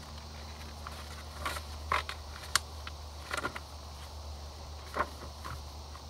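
Paper rustling and handling noises as a handmade junk journal's tag and pages are worked and turned, with a few short crisp rustles and one sharp click about two and a half seconds in, over a steady low hum.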